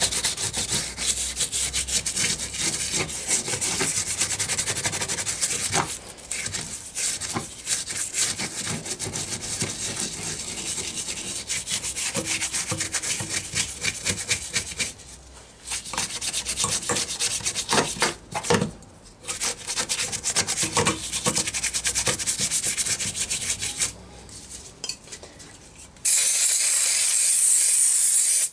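A stiff brush scrubbing solvent-softened underseal off a car's steel floor pan in repeated back-and-forth strokes, with a few short pauses. Near the end comes a steady hiss of aerosol solvent spray, about two seconds long.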